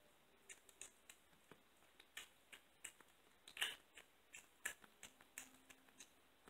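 Blue tortoiseshell kitten eating raw ground chicken and a chicken wing: faint, irregular wet clicks of chewing and licking, one louder click about halfway through.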